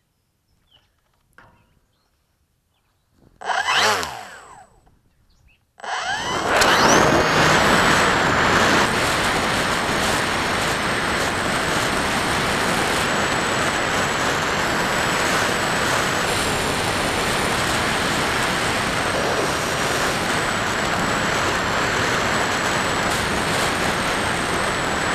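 Foam-board flying wing in flight, heard from its onboard camera: a steady rush of wind with the EMAX GT2215 brushless motor and propeller running, and a thin high whine that wavers slightly. This sets in suddenly about six seconds in, with a short rising whine; before that it is mostly quiet apart from one brief loud pass about four seconds in.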